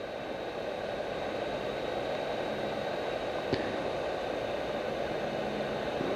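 Hot-air reflow station's blower running steadily, a rushing hiss of hot air from the gun's nozzle as it heats a surface-mount tantalum capacitor to melt its solder. A faint click about halfway through.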